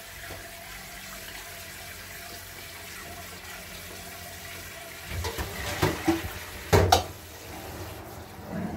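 Tap water running steadily into a kitchen sink. About five seconds in come several sharp knocks and clatters, the loudest just before the end.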